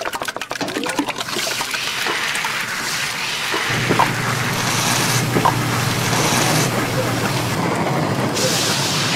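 Food-preparation sounds: rapid knife chopping on a board at first, then a steady hiss of sizzling and frying whose tone changes from shot to shot. A low hum runs through the middle few seconds.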